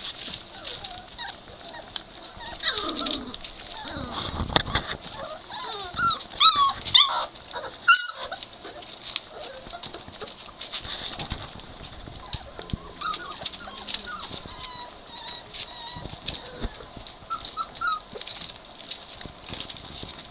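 Three-week-old Great Dane puppies whimpering and squeaking as they play, in short high gliding calls that are busiest in the first half, with scuffling of small paws between them.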